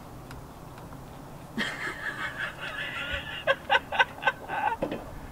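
A woman laughing: a drawn-out laugh about a second and a half in that breaks into a quick run of short 'ha' bursts, about four or five a second, near the end.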